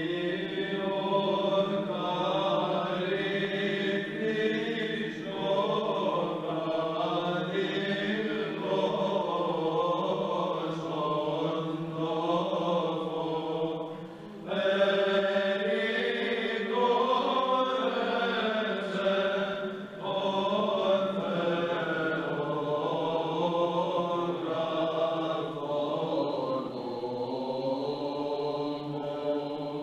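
Male choir of chanters singing Byzantine chant: a moving melody over a steady held low drone note (the ison). The singing breaks off briefly about halfway through between phrases, and the drone drops to a lower note shortly after.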